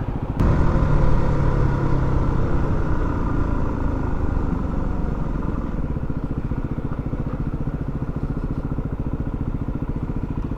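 Yamaha WR250R's 250 cc single-cylinder four-stroke engine: it gets louder about half a second in, its pitch falls away over the next few seconds, and it settles into a steady, evenly pulsing idle.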